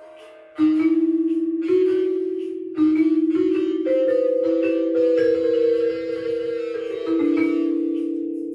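Ensemble music on tuned mallet percussion: slow chords struck about once a second, each left to ring and slowly fade with a wavering shimmer.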